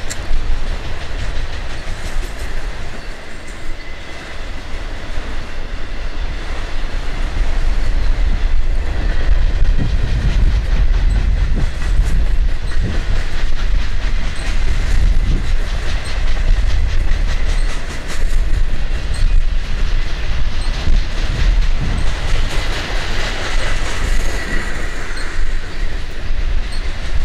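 Freight cars of a mixed freight train rolling past close by: a steady low rumble of steel wheels on rail with repeated clicking over the rail joints and a thin, faint wheel squeal. It grows louder about a third of the way in.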